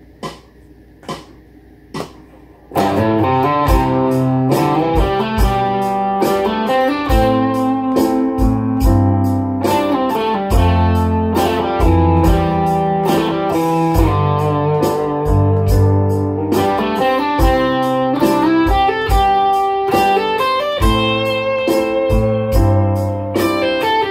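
A few evenly spaced clicks, then about three seconds in an electric guitar plays a slow melodic phrase with grace-note hammer-ons, pull-offs and slides over a backing track with bass and drums.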